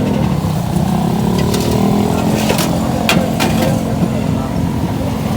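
Street traffic: a motor vehicle engine running steadily, with a few sharp clicks near the middle.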